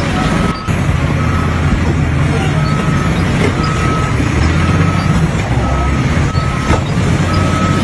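Reversing alarm on heavy machinery, beeping a single steady tone about once a second over the loud, low rumble of a running engine. There is a brief break about half a second in.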